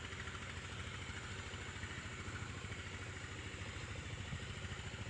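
An engine idling steadily with an even, rapid low pulsing.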